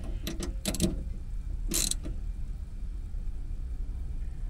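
Ratchet socket wrench clicking and clinking on metal as bolts are driven in on a power inverter: a few sharp clicks in the first second, then a short rasp near two seconds, over a steady low rumble.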